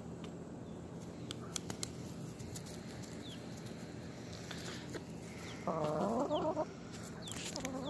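Hens clucking: one loud, trembling call about six seconds in, and another call starting just before the end. A few sharp ticks come a second or two in.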